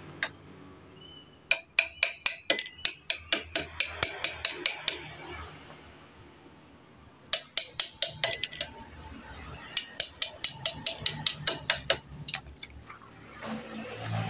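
Socket wrench tightening a scooter's front axle nut: rapid metallic clicks with a ringing edge, several a second, in three runs with short pauses between.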